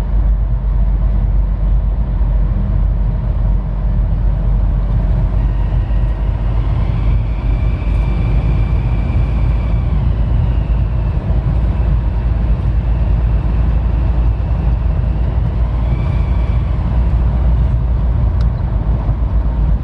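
2007 Nissan Pathfinder 2.5 dCi four-cylinder turbodiesel running, with a high-pitched squeak that comes in when the throttle is pressed. The squeak rises in about six seconds in, holds for roughly three seconds, fades, and returns briefly near the end. Two workshops found no holes or damage in the vacuum pipes, so its cause is unexplained.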